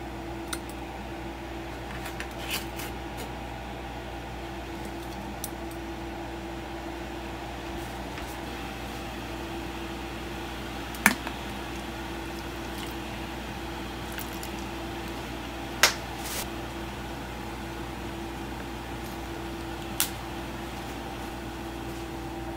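Steady hum of a running kitchen appliance or fan, a low drone with a faint steady tone, under a few sharp clicks and knocks from ingredients and utensils being handled at a stainless steel mixing bowl. There are three louder clicks, about halfway, about two-thirds in and near the end.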